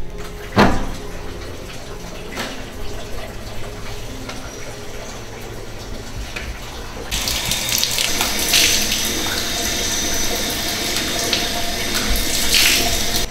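Two sharp knocks, the first about half a second in and the second about two seconds later. About halfway through, water starts running from a tap and keeps running, with hands splashing water onto a face.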